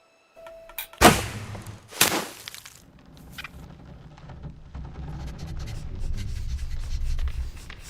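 Film sound effects: two loud impacts about a second apart, then a low rumble with scattered small knocks that grows louder.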